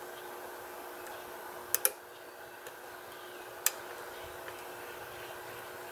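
Lock pick and tension wrench working the pins of a pin-tumbler padlock: a few sharp little metallic clicks, two close together about two seconds in and another a couple of seconds later, over a faint steady hum.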